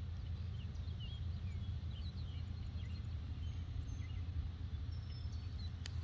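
Low, steady rumble of wind on the phone's microphone, with faint short bird chirps in the background and a single click near the end.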